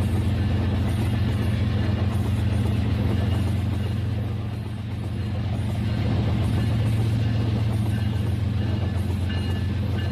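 Battery-powered toy trains running on plastic track: a steady low motor hum with a fast rattle of the wheels over the rails. The sound dips briefly about halfway through.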